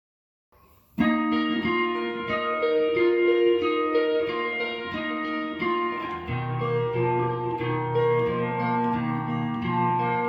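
Solo guitar playing a slow melody of plucked notes, starting about a second in, with a sustained low bass part joining about six seconds in.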